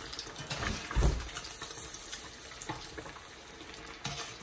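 Thin batter-coated panfish fillets deep-frying in hot oil, a steady sizzle, with a wire spider strainer stirring in the pot and a few light clicks. A dull thump about a second in.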